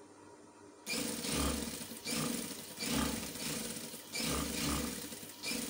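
Sewing machine stitching a seam through fabric in several short runs of about a second each, with brief pauses between, starting about a second in.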